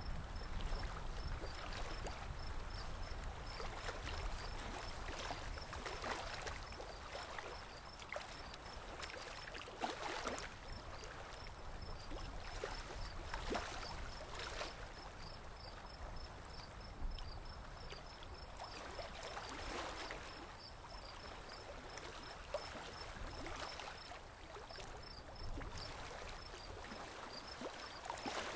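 Water splashing and lapping against the hull of a boat moving along a calm river, with a low rumble of wind on the microphone that is strongest at the start. A faint high chirp repeats a few times a second throughout.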